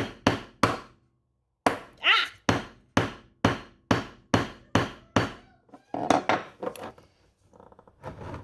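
Hammer repeatedly striking a flathead screwdriver into the plastic lid of a glass seasoning grinder jar, at a steady two to three blows a second. There is a short silent break about a second in. The blows thin out to a few scattered knocks after about five seconds.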